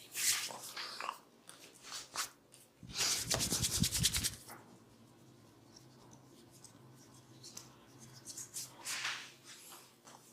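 A barber's hands massaging bare skin: soft rubbing, broken about three seconds in by a louder, quick run of rhythmic hand strikes, about ten a second, lasting just over a second.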